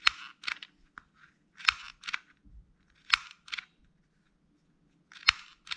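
Handheld stapler-style mini sewing machine squeezed four slow times, about every second and a half, each press giving a sharp clack and then a softer click just after as it makes a chain stitch.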